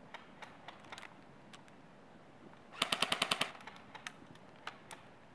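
Airsoft electric gun firing one short full-auto burst of about ten rapid shots, about fourteen a second, a little past halfway through.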